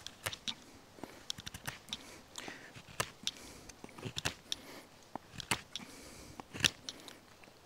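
Work Tuff Gear Red Wolf knife, a full-convex N690 steel blade, shaving a point onto a wooden tent peg with short reverse-grip strokes: an irregular string of brief slicing and scraping cuts through the wood.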